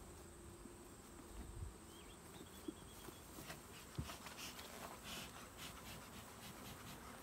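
Honeybees buzzing faintly around an open hive, with two sharp knocks of wooden hive equipment being handled, then short hissing puffs of a bee smoker in the second half.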